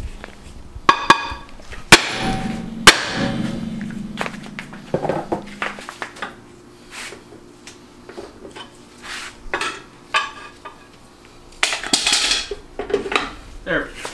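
Metal tools clanking and knocking on metal during work on a truck's rear axle and drum brake. Three loud sharp strikes come about one, two and three seconds in, a low steady hum runs for a few seconds after them, and a short rushing noise comes near the end.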